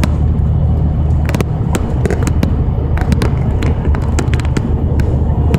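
Steady low rumble of a moving road vehicle, with scattered sharp clicks and rattles at irregular times.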